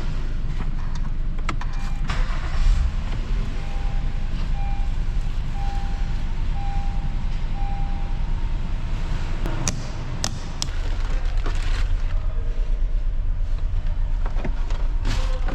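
A car engine running steadily with a low rumble. A series of short electronic beeps sounds from about three to eight seconds in, with a few clicks.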